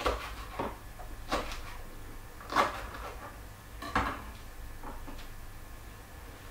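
Chef's knife knocking on a chopping board as spring onions are sliced on the slant, a handful of separate knocks spaced irregularly, mostly a second or so apart.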